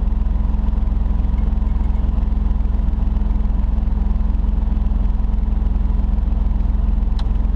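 Off-road 4x4's engine idling steadily, heard from inside the cab, with a brief click near the end.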